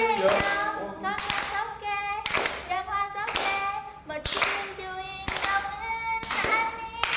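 A Korean pop song sung by students, with several people clapping along to the beat, about one clap a second.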